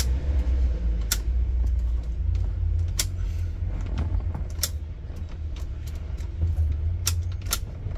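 Car engine idling with a steady low hum, while the key in the freshly repaired ignition lock cylinder is worked and tugged, giving about five sharp clicks and key jingles; the key now stays put in the cylinder.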